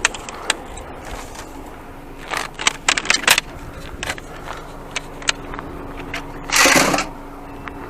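Sharp clicks and knocks of scrap being cut and handled with hand snips, bunched up about two to three seconds in. Near the end comes a short, louder rustling crash, over a faint low steady hum.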